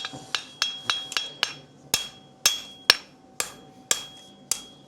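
Farrier's hammer striking a horseshoe on an anvil, forging the bevel of an equilibrium toe: a steady series of blows about two a second, the steel and anvil ringing after each.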